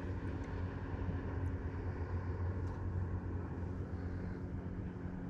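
Distant engine running with a steady low hum, with a few faint light ticks over it.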